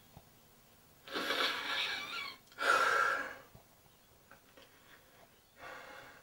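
A man breathing heavily into his hand in distress: a long ragged breath about a second in, a sharper louder one right after, and a fainter breath near the end.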